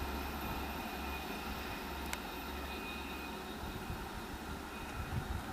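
SNCF X 72500 diesel railcar running away along the line, a steady low engine rumble slowly fading, with a few low thumps near the end.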